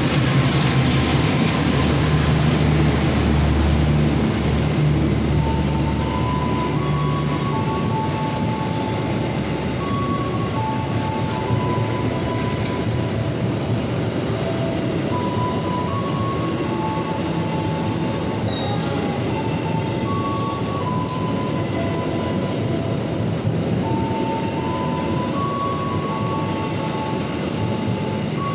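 Gajayana express train passing close at speed: the diesel locomotive's engine hum is loud for the first few seconds, then the steady rush of the passenger coaches rolling by on the rails. From about five seconds in, a simple tune of clear single notes plays over the train noise.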